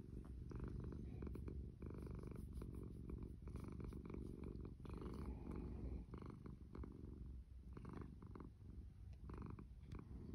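Domestic cat purring steadily, a low continuous rumble that swells and eases every second or two.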